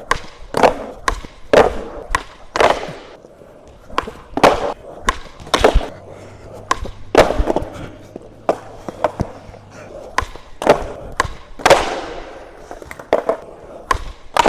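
Skateboard being popped and landed over and over: many sharp clacks and slaps of the board on pavement, some followed by brief rolling of the wheels.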